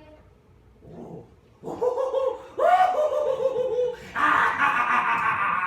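A performer's drawn-out, wavering vocal sounds of relief as his itchy nose is scratched, then a burst of laughter about four seconds in.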